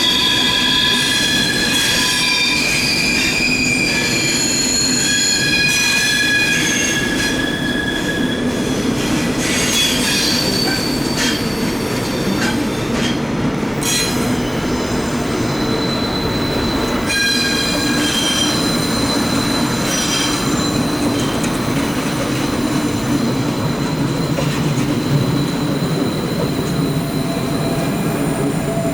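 Train wheel flanges squealing against the rails as a train rolls through a tight curve: several shrill tones come and go over the steady rumble of the wheels, with a run of sharp clicks near the middle.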